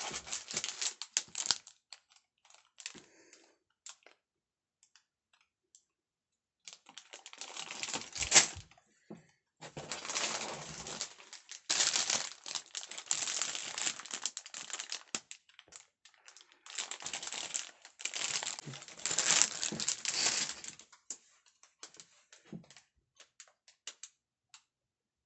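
Plastic bags of Lego pieces crinkling as they are handled, with the loose bricks inside clicking and rattling. It comes in several stretches with short pauses between, and there is one louder knock about eight seconds in.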